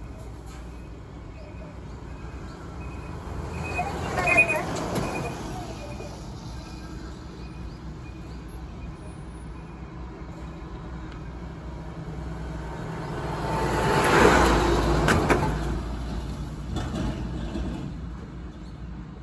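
Two road vehicles drive past one after another, each swelling and fading away as it goes by. The first peaks about four seconds in with a falling pitch. The second is louder, with a deeper rumble, and peaks near the middle, with a couple of sharp knocks as it passes.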